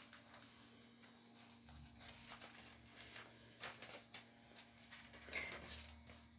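Near silence: room tone with a faint steady hum and a few faint, brief soft noises.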